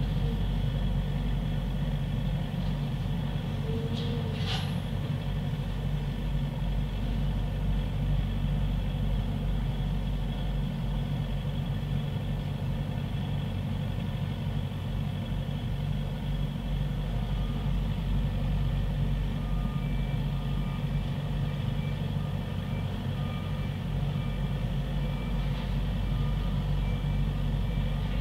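Heavy construction machinery's diesel engine running steadily, a low even hum. From about two-thirds of the way in, a reversing alarm gives repeated beeps, with a brief high squeak about four seconds in.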